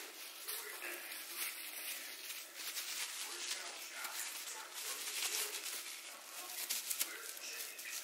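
Bubble wrap and plastic packing crinkling and rustling in quick, irregular crackles as decorations are wrapped by hand and packed into a plastic storage tote.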